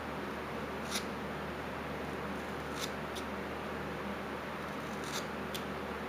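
Carving knife slicing small cuts in basswood: five short, crisp snicks spread over a few seconds against a steady low hiss.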